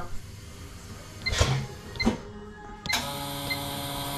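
Short electronic beeps from the touchscreen of a Provalve 800 S valve seat and guide machine as its buttons are pressed, then about three seconds in a click as the machine's spindle starts, running on with a steady hum.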